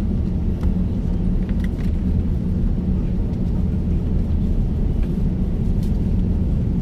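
Steady low rumble inside the cabin of an Airbus A350-900 taxiing, its Rolls-Royce Trent XWB engines at low thrust and the plane rolling slowly on the taxiway.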